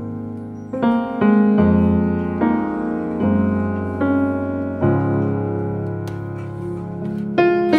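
Background music: a piano or electric piano playing slow sustained chords over a steady bass line, a new chord roughly every second.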